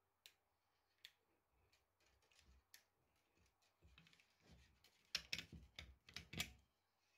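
Quiet clicks and rubbing as fingers handle PET filament and a PTFE tube in a 3D-printed plastic splicer jig: a few single clicks at first, then denser taps and scrapes, loudest in a cluster about five seconds in.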